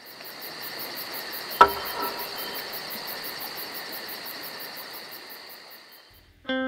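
Crickets chirping in a meadow ambience, a steady high pulsing of about four to five chirps a second over a soft hiss, with one sharp knock about one and a half seconds in. The chirping fades out near the end as guitar music begins.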